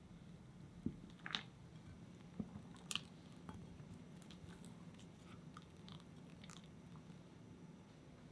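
Quiet kitchen handling sounds while making a cream: a few sharp clicks and light crunches about a second in and again near three seconds, then scattered faint ticks.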